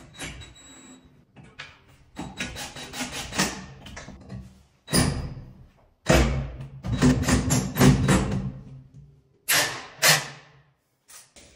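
Cordless drill running in several short bursts of one to three seconds, driving into the underside of a concrete countertop to fix a sliding-door track.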